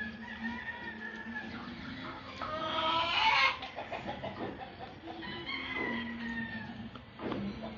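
Bird calls: one loud call about two and a half seconds in, lasting about a second, with fainter calls before and after it over a steady low hum.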